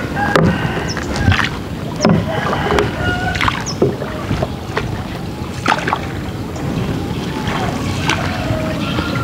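Two long wooden paddles working a small boat: the blades splash and pull through the water in uneven strokes, with sharp knocks now and then as a paddle strikes the boat's side.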